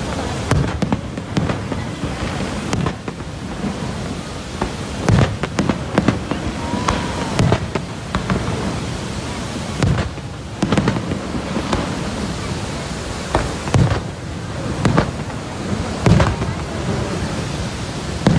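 Steady rushing roar of Niagara Falls, broken by irregular sharp bangs every second or two.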